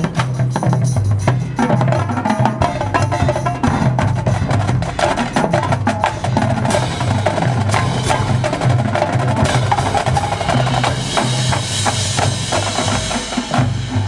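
Marching band percussion playing a fast rhythmic passage: dense, crisp drumline strikes over repeating low pitched bass-drum notes, with front-ensemble percussion. A bright hiss builds from about halfway through.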